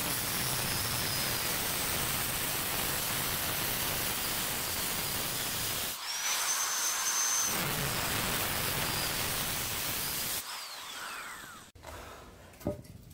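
Angle grinder cutting through a two-layer scrap radiator: a loud, harsh hissing grind over a high motor whine, which stops briefly and spins back up about six seconds in for another cut. Near the end the motor winds down with a falling whine, followed by a single knock.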